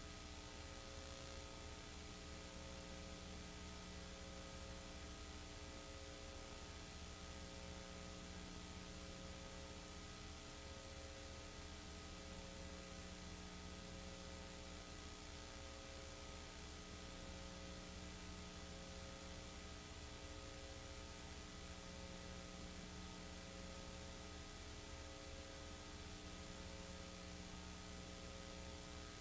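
Faint steady electrical hum with hiss, a few of its tones pulsing slowly on and off. This is the noise floor of a silent film transfer, with no other sound.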